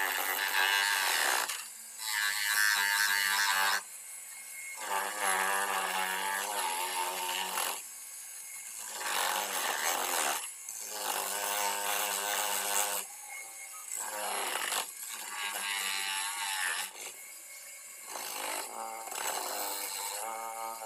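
A bench grinder fitted with a red abrasive disc, with an aluminium motorcycle front brake plate pressed against it to strip corrosion. It makes a pitched, rasping grind in repeated passes of one to three seconds, each stopping briefly as the plate is lifted and turned.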